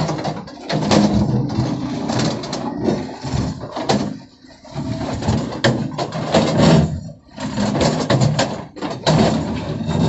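Tracked excavator's diesel engine running while its hydraulics work the arm and bucket in a trench, with repeated scraping and knocking of the bucket against soil and stone. The sound dips briefly twice, about four and seven seconds in.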